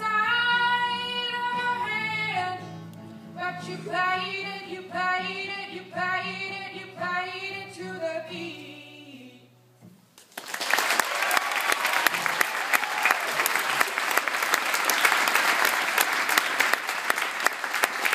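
A female singer with acoustic guitar accompaniment sings the closing line of a song; the voice and guitar fade out about nine seconds in. After a short pause an audience breaks into sustained applause.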